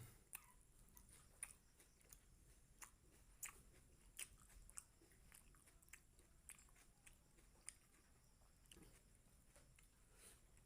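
Faint chewing of a person eating chicken liver and gizzard curry with rice, heard as irregular soft mouth clicks and smacks.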